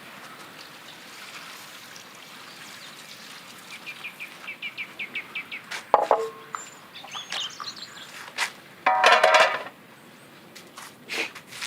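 Birds calling: a quick run of chirps about four to six seconds in, a few high whistles, and a louder harsh call about nine seconds in.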